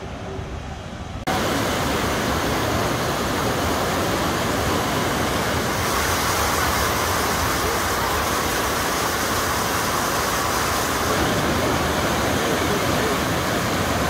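River rapids and a small waterfall rushing over flat rock: a steady, loud rush of white water that cuts in abruptly about a second in, after a quieter start.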